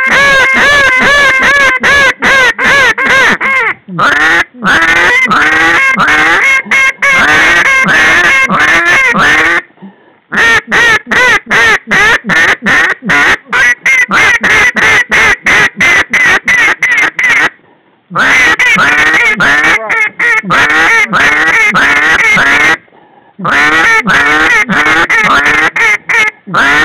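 Hand-blown duck call, loud and close, sounding runs of rapid quacks several a second, broken by short pauses about ten, eighteen and twenty-three seconds in: calling to a flock of ducks circling back.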